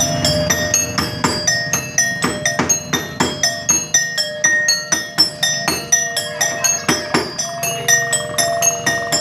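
Rhythmic percussion music: a quick, steady beat of struck metallic notes that ring on after each strike, over a low hum.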